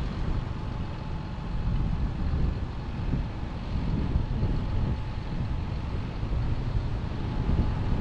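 Low, steady engine rumble from farm machinery, with wind buffeting the microphone and a faint steady whine above it.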